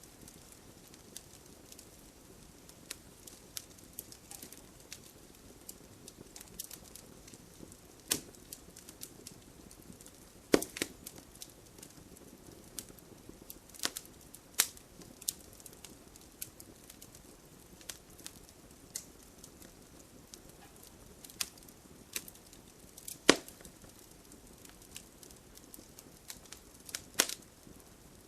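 Wood fire crackling: a low steady hiss with scattered sharp pops and snaps, a few of them much louder than the rest.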